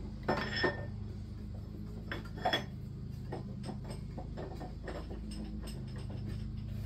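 A splined steel shaft clinking and ticking against the parts of a 4L60E automatic transmission as it is slid and turned into place. A few sharp metal clinks come in the first second and again about two and a half seconds in, then lighter ticks, over a steady low hum.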